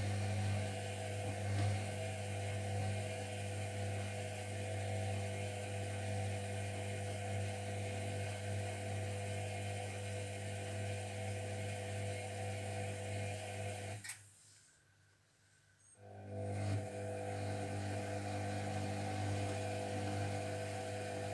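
Zerowatt/Hoover Performa 1000 washing machine running its main wash: a steady low electric hum with a higher whine over it. About two-thirds of the way through it stops for about two seconds and then starts again, typical of the drum pausing between turns.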